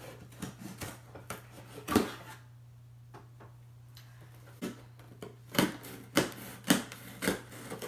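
A knife cutting through the packing tape on a cardboard shipping box: a run of short, sharp scrapes and pokes, two in the first couple of seconds, then a pause, then a quicker string of cuts in the second half, over a faint steady hum.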